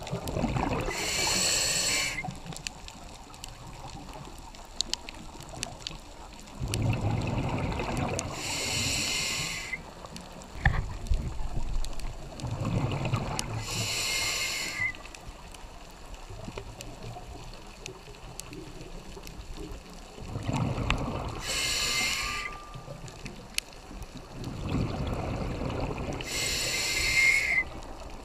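Scuba diver breathing through a regulator underwater: five breath cycles, each a couple of seconds of low bubbling rumble followed by a short hiss, with quieter pauses between breaths.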